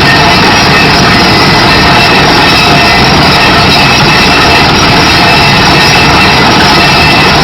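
Kaishan KW20 water well drilling rig running: a loud, steady machinery noise that does not change.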